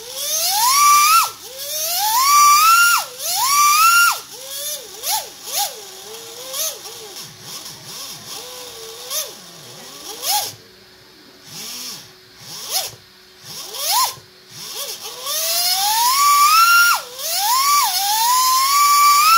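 Sensored brushless RC car motor, unloaded on the bench, revved by throttle blips through a 120A ESC. Each blip is a whine that rises in pitch to a shrill top and cuts off: three full revs, then a run of short small blips, then two long climbing revs near the end. The shrill top end is the ESC's turbo timing.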